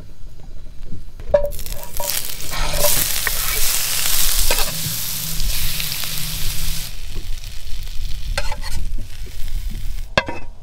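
Gray grunt fillets frying with diced pineapple and red onion in butter in a frying pan. There is a loud sizzle from a few seconds in, easing off about two-thirds of the way through, with a few sharp clicks.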